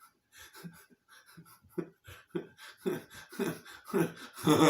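A person breathing hard in short, rhythmic voiced puffs, about two a second, that grow louder and quicker. Near the end they break into a loud, drawn-out voiced groan.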